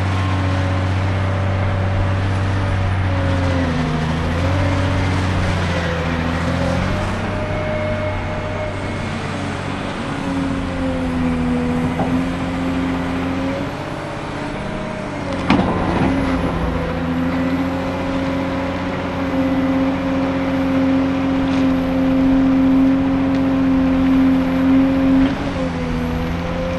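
Cat 385C LME excavator's diesel engine running steadily under working load, its note dipping briefly and recovering several times. A single sharp knock comes about fifteen seconds in.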